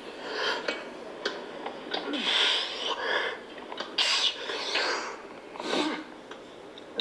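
A man's heavy breathing and sniffing: several loud breaths and sniffs about a second apart as he catches his breath between sets.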